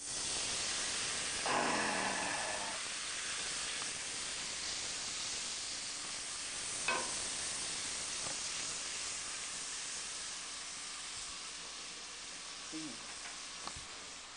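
An oil, lime juice and seasoning mixture poured into a hot skillet, sizzling sharply the instant it hits the pan, then sizzling steadily and slowly dying down as a spatula stirs it. A single light tap of the spatula comes about seven seconds in.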